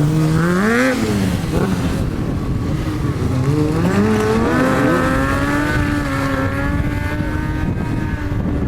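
Stunt motorcycle engine revving. The revs rise and drop back about a second in, then climb again and are held high and fairly steady, wavering slightly, as the bike is kept on the throttle through a circle trick.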